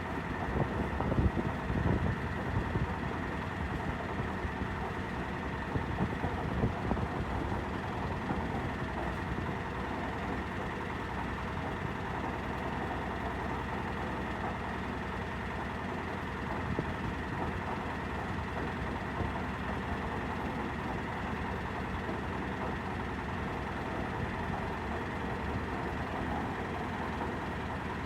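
Heavy engine and machinery running steadily, a constant drone with a few louder, uneven rumbles near the start.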